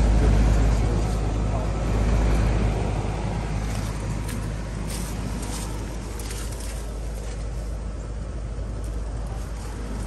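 Lennox 13HPX heat pump outdoor unit running: a steady low hum under the rush of its condenser fan, loudest in the first few seconds, then steadier and a little quieter, with a few faint ticks in the middle.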